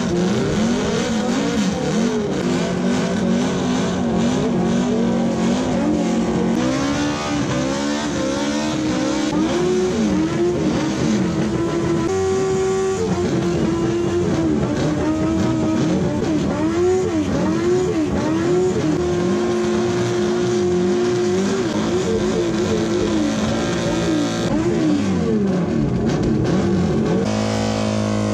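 Two motorcycles doing burnouts: their engines revving hard, the pitch climbing and dropping again and again, over the hiss and squeal of rear tyres spinning on the ground.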